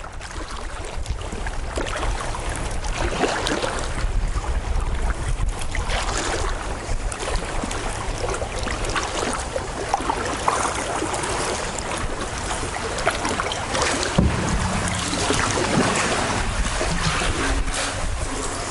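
Kayak being paddled through calm water: paddle blades dipping and splashing, and water running along the hull, with steady wind noise on the deck-mounted camera's microphone.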